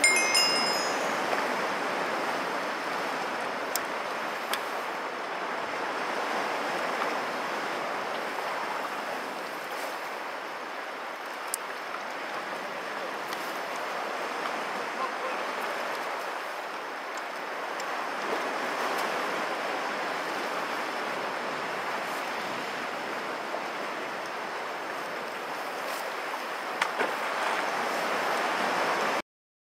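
Sea waves washing against a rocky shore, a steady rush of surf with some wind, swelling and easing slowly. A brief high tone sounds at the very start and a few faint clicks come through. It cuts off suddenly near the end.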